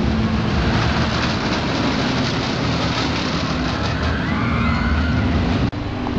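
Colossus steel roller coaster train rumbling along its track overhead with a loud, steady roar, which cuts off abruptly near the end.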